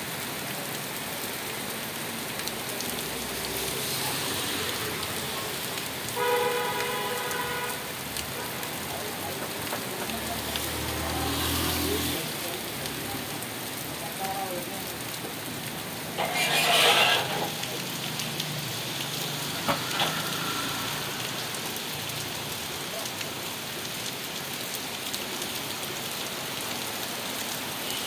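Steady rain falling on a wet road. A vehicle horn sounds once for about a second and a half roughly a quarter of the way in, a low engine rumble passes a little later, and the loudest moment is a brief noisy rush about two-thirds through.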